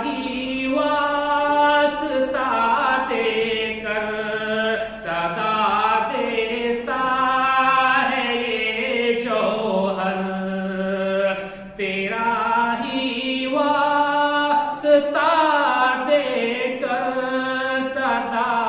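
A man's solo voice chanting an Urdu devotional nazm without accompaniment, in long drawn-out melodic phrases separated by short breaths.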